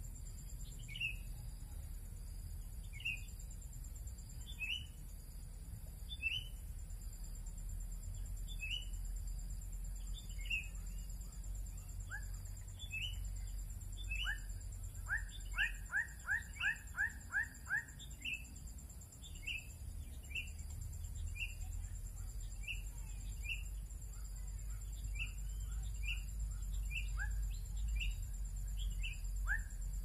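Bird calls: short, sharp downslurred chips about once a second, with a quick run of about eight notes around the middle. A steady high insect buzz runs underneath.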